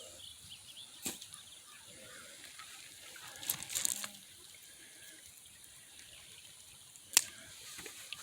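Shallow creek water trickling faintly, with a few sharp clicks and knocks, the loudest about seven seconds in.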